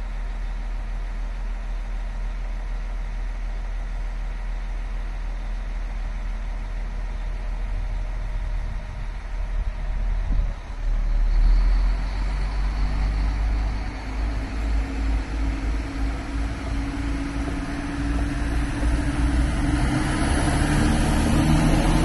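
Diesel engines of a DB class 642 Desiro railcar idling steadily, then revving up about halfway through as the train pulls out of the station, the engine note rising and growing louder near the end.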